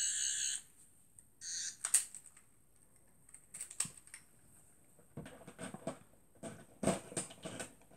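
Toy sonic screwdriver giving its electronic buzz twice: once for about half a second at the start and once briefly about a second and a half in, with its batteries dying. Scattered clicks and knocks of handling and movement follow.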